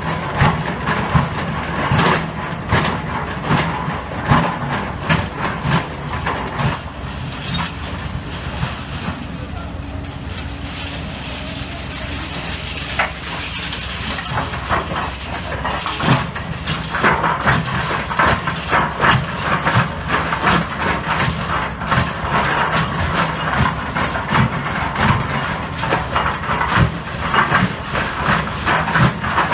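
Excavator engine running steadily while its bucket knocks and scrapes through concrete rubble and steel rebar, with frequent irregular clanks and cracks.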